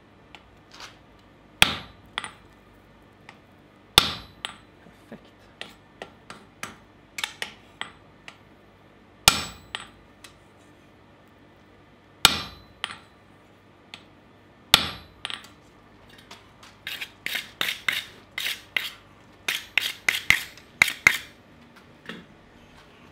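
Hand hammer blows on a wooden-handled blacksmith's top tool held against hot steel on the anvil, each strike ringing sharply. Single heavy blows come a few seconds apart with lighter taps between them, then a quick run of lighter ringing strikes comes near the end.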